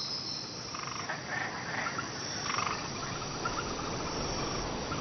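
Tropical rainforest ambience of frogs calling, with insects, and a run of quick repeated clicking calls in the second half.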